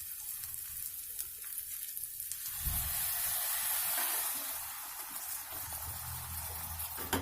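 Stuffed brinjals frying in oil in a pan, sizzling steadily. About two and a half seconds in there is a low knock and the sizzling grows louder and fuller as warm water from the covering plate is poured into the hot pan, then slowly eases.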